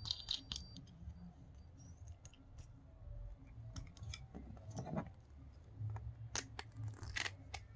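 Faint, scattered small clicks and light scrapes of handling a GOMEXUS spinning-reel handle knob while its end cap is screwed back on.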